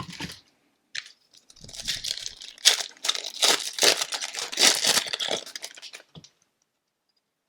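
Foil wrapper of a hockey card pack being torn open and crinkled, a few seconds of dense crackling that then cuts off.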